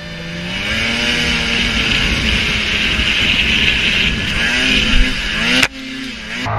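Snowmobile engine revving hard as the sled ploughs through deep powder, its pitch rising and then holding high, with a loud hiss over it. The sound breaks off abruptly with a click about five and a half seconds in, and an engine picks up again.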